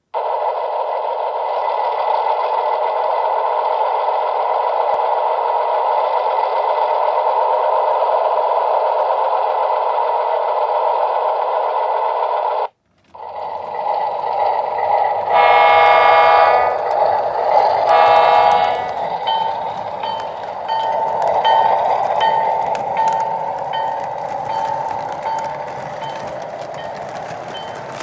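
Onboard sound system of a Williams O gauge Alco RS-3 model: the diesel engine runs steadily from its small speaker, then cuts out briefly about halfway. Two horn blasts follow, then the bell dings at a steady pace while the train rolls with clicking wheels on three-rail track.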